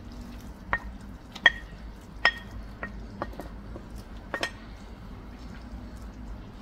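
Shredded cooked chicken being tipped off a china plate into a pan of simmering sauce. About seven sharp clinks on the plate come in the first four and a half seconds, over the soft steady bubbling of the sauce.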